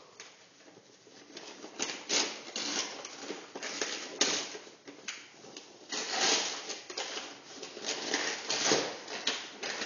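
Wrapping paper being torn and crinkled off a gift box, in irregular rips and rustles. It is faint for the first couple of seconds, then the rips come thicker and louder, with the loudest ones about four, six and nine seconds in.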